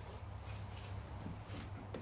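A few faint, short clicks and taps, most of them in the second half, over a steady low hum.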